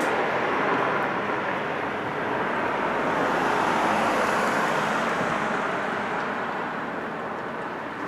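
A loud, steady rushing outdoor noise with no distinct events, swelling a little in the middle and easing slightly towards the end.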